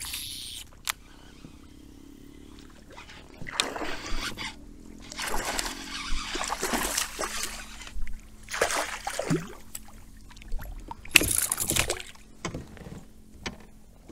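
A small hooked northern pike thrashing at the surface beside a kayak as it is reeled in, water splashing in several uneven bursts, with a few sharp clicks in between.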